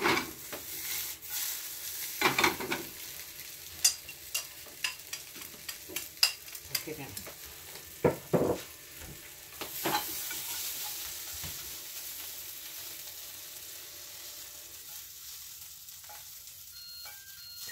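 Food sizzling in a frying pan as it browns, with the clatter and scrape of a utensil stirring it several times in the first ten seconds or so, after which the steady sizzle carries on.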